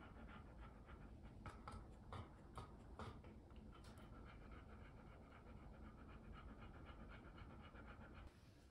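Golden retriever panting rapidly and evenly with its mouth open, several short breaths a second. A few sharp clicks sound in the first four seconds.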